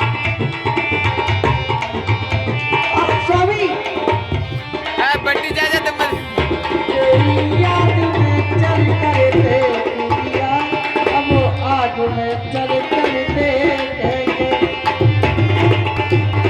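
Instrumental music: tabla playing a steady rhythm under a wavering melody line, an interlude in a Hindi folk song.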